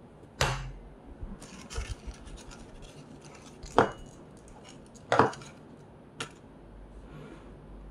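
Hands rearranging folded paper pieces in two bowls: four sharp taps and knocks against the bowls, with light paper rustling between them.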